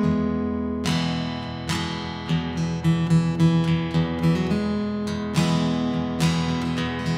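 Acoustic guitar played fingerstyle: plucked melody notes that ring on over sustained bass notes.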